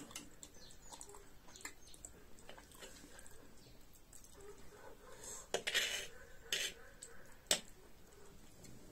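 Metal fork clinking and scraping against a steel bowl of steamed egg, in scattered small clicks, with a scrape and a few sharper clinks in the second half.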